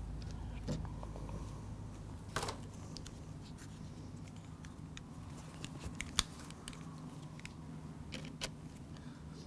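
Small handling noises of a folding Allen key set being opened and turned over a bow's quiver bracket: a few sharp metallic clicks scattered through, over a low steady hum.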